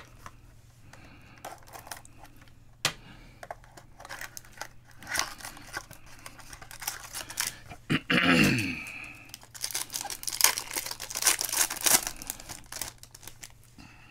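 Foil trading-card pack being handled, torn open and crinkled, with scattered clicks and rustling that grow busier in the second half. A brief squeak slides downward in pitch about eight seconds in.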